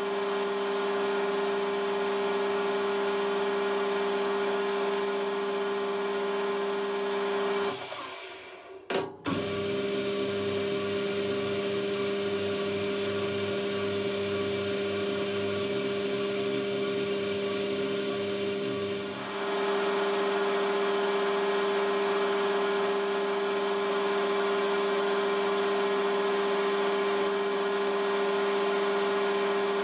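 Metal lathe running steadily with an even hum while boring out the spindle's bore. It stops about 8 seconds in and starts again with a click a second later.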